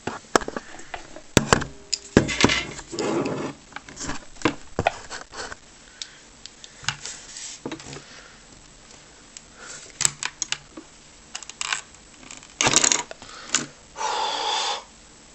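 Irregular clicks, taps and scrapes of a screwdriver prying at a Bluetooth speaker's plastic housing and circuit board, with a louder scrape near the end and a brief squeak just before it ends.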